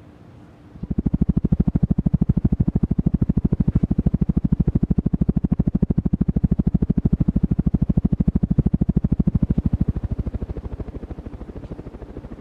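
Sears Turn of the Century Deluxe ceiling fan running, its blades sending a rapid, even pulsing rush of air over the microphone. The pulsing starts about a second in and eases off near the end.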